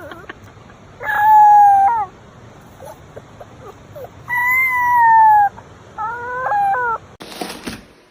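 Three long animal calls, each about a second and fairly even in pitch, the last one lower and stepped. A short noisy burst follows near the end.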